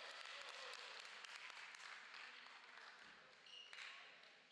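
Faint basketball-hall ambience: distant voices with scattered ball bounces and shoe noises echoing in the gym. A short, high referee's whistle blast sounds near the end, stopping play.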